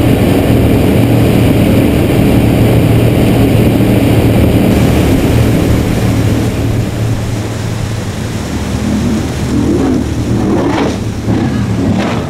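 Twin Mercury Racing 1350 V8 engines of an MTI 48-foot racing catamaran running flat out, a loud steady drone at first. In the second half the engine pitch swells and falls several times.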